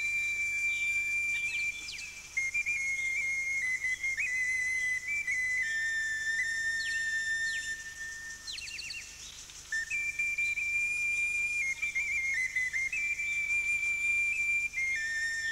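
Music: a high, whistle-like melody of long held notes that step up and down in pitch, with a few quick rising flourishes.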